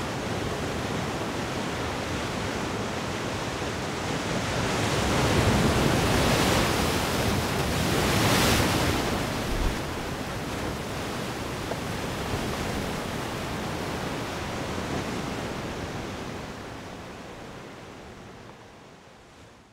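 Ocean surf: a steady rushing wash of waves that swells twice in the middle, then fades out near the end.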